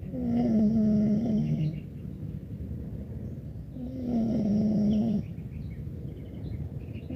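Loud snoring: two long snores about four seconds apart, each lasting about a second and a half.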